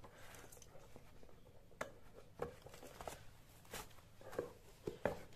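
Faint, irregular taps and rustles of rubber clogs being handled and stepped into barefoot.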